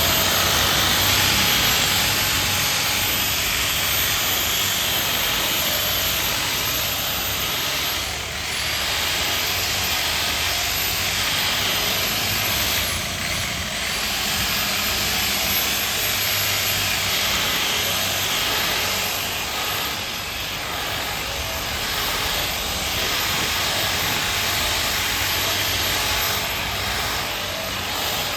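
Electric polishing machine running steadily on a headlight lens, with a whining hiss and a high steady tone; the sound dips briefly a couple of times, about a third of the way in and near the middle.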